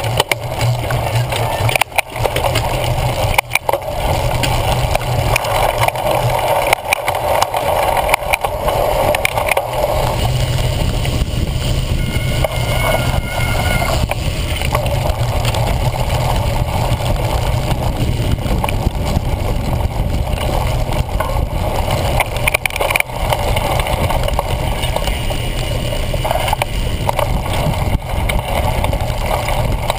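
Steady rumble and rush of wind and vibration picked up by a GoPro Hero 1 mounted on a cyclocross bike being ridden over bumpy grass, with a few sharp knocks about two and three and a half seconds in.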